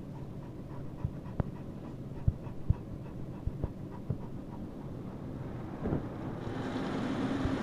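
Great Pyrenees panting close by in a car's back seat, with a few short clicks over a low rumble. Near the end a louder steady hiss with a low hum comes up from the car wash machinery.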